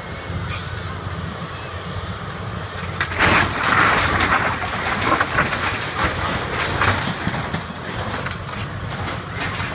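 Caterpillar excavator engine running under load while its bucket tears at a corrugated metal roof: about three seconds in, loud crashing, scraping and clattering of metal sheeting and debris begins and goes on in a run of sharp knocks.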